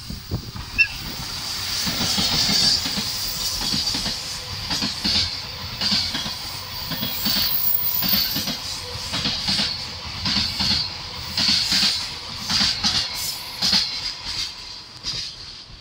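A freight train headed by an EF81 electric locomotive passing close by. A long line of container flat wagons rolls past with a steady rolling hiss and repeated clacks of wheels over rail joints. It builds over the first couple of seconds and drops off at the end as the last wagons go by.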